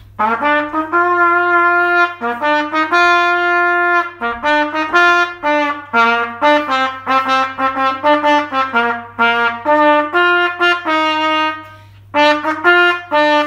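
Instrumental intro music: a single melody line of held notes, played one note at a time, with a short break near the end.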